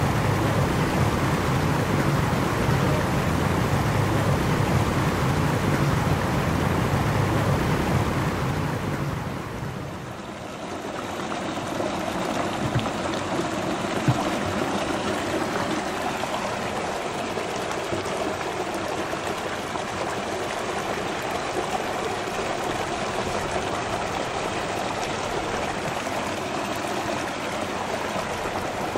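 Small mountain stream running over rocks, a steady rush of water. The sound is louder and deeper for the first third, dips about ten seconds in, then settles into an even babble.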